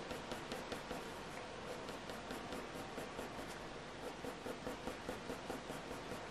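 Graphite pencil, a soft 8B Staedtler Mars Lumograph, scratching across hot-pressed watercolour paper in quick short shading strokes, about three or four a second, faint and even.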